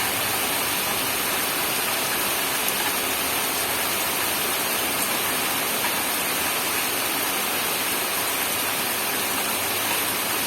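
Steady rainfall: a dense, even hiss of rain falling, with a few faint drop ticks.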